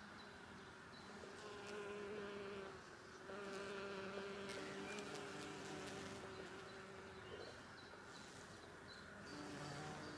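Bees buzzing close by, a faint steady hum that comes and goes, strongest from about a second and a half in to about seven seconds in and again near the end.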